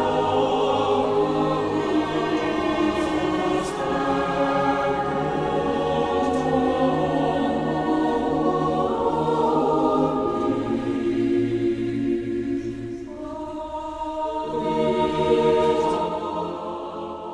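Choral music on the soundtrack: voices holding sustained chords, which shift to a new chord a little after halfway and fade near the end.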